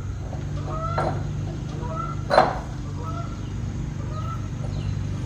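A bird calling over and over, short rising calls about once a second, over a steady low hum. One sharp click about two and a half seconds in.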